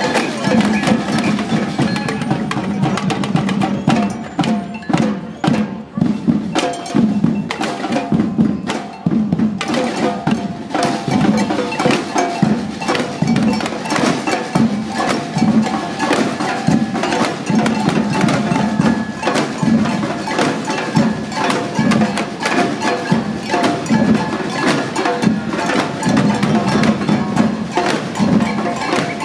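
A samba drum band playing: a dense, driving rhythm of snare and larger drums struck with sticks. The playing thins to fewer strokes between about four and nine seconds in, then the full band comes back in.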